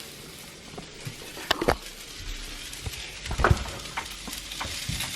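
Hot dogs and brats sizzling in a frying pan: a steady hiss broken by a few light clicks and knocks, the loudest about a second and a half in and again near three and a half seconds.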